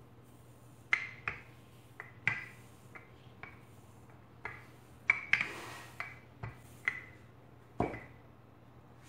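Wooden rolling pin clicking and knocking against a worktop while rolling out biscuit dough: about a dozen irregular sharp clicks, with a short hiss about five seconds in.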